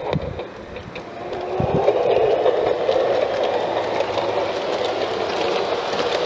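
LGB G-scale model train (a Krokodil electric locomotive and its wagons) rolling past on its track: a steady running hum of wheels and drive gear, getting louder about a second and a half in, with faint clicking from the wheels.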